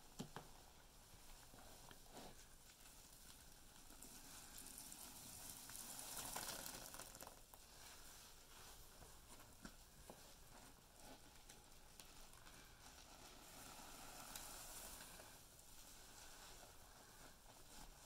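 Sponges soaked in foamy Pinalen cleaner and dusted with Comet scouring powder, squeezed and kneaded by hand: faint wet squishing and crackling foam with small clicks, swelling twice.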